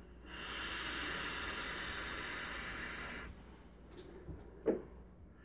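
A rebuilt dripping-atomizer vape taking a hit: a steady hiss of the coil firing and air drawn through it for about three seconds. A brief breath follows near the end.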